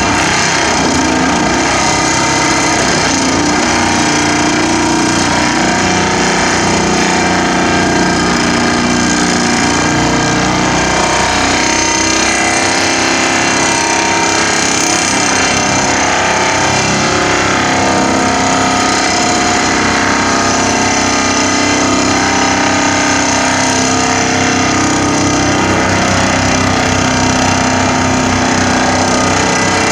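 Vibratory pile-driving hammer driving a steel sheet pile into the ground: a loud, steady drone made of many sustained tones.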